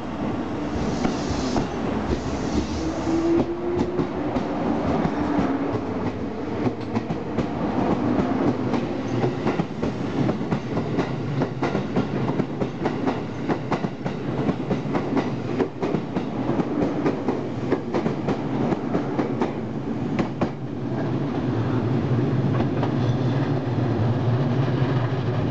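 JR Kyushu 783 series electric express train pulling out of a station. A motor whine rises in pitch over the first few seconds as it accelerates, then the cars roll past with a fast clickety-clack of wheels over rail joints. A low steady hum swells near the end.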